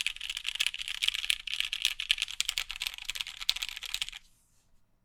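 Fast, steady typing on a custom mechanical keyboard with NOS Cherry MX Black linear switches, mounted on 50A o-rings: a dense patter of keystrokes. The typing stops suddenly about four seconds in.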